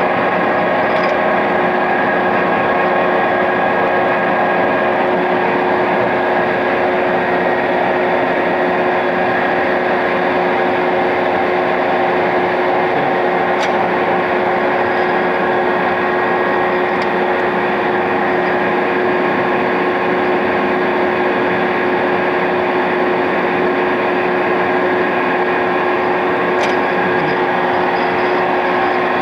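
Steady, loud hum of running machinery with several held tones, and two faint clicks, one about halfway through and one near the end.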